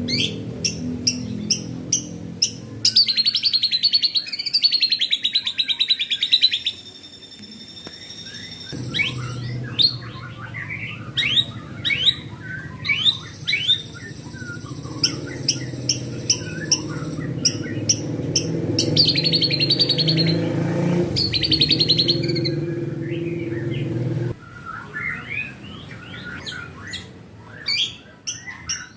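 White-rumped shama (murai batu) singing in a rapid, varied run of sharp chirps, fast rattling trills and held whistled notes. A low steady hum sits under the song through the middle stretch.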